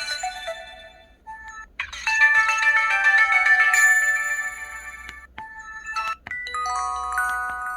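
Pantech SKY IM-S480 tilt phone playing its electronic power on/off melody, a jingle of ringtone-like notes lasting about three and a half seconds. About six seconds in, a shorter chime of a few notes follows: the phone's sound for the tilt screen opening.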